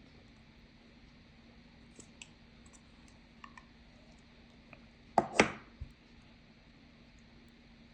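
Quiet clicks and taps from small objects being handled, with a louder double knock about five seconds in.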